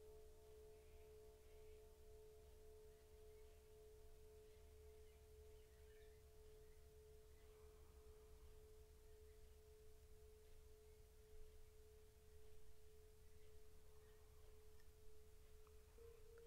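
Tibetan singing bowl ringing on one long, faint, steady tone, with a few fainter overtones above it.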